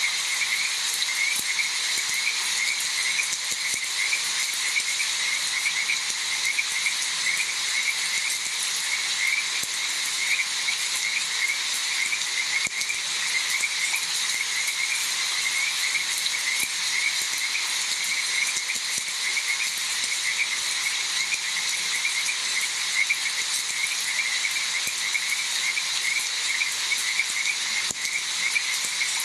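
A chorus of frogs croaking continuously in rapid, repeated calls over a steady hiss that fits rain.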